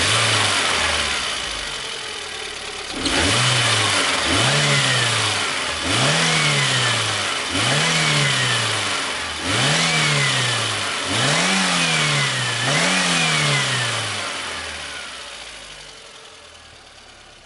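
VAZ-21099 four-cylinder engine idling and revved about seven times in quick succession, each rev rising and falling, then settling back to a quieter idle near the end. A thin whistle rises and falls with each rev, coming from a sparking alternator whose fault the mechanic first puts down to its windings.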